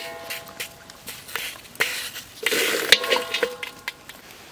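Duck eggs set down into a steel wok, each knock on the metal leaving the wok ringing with a clear metallic tone; a clink about two seconds in and a busier run of knocks and ringing about a second later.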